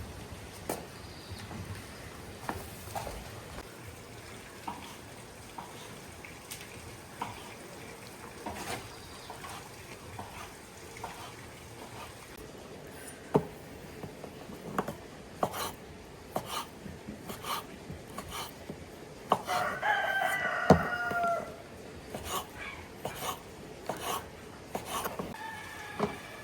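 A rooster crows once, about three quarters of the way in, in a call of about two seconds. Scattered sharp knocks and clicks are heard throughout, more often in the second half.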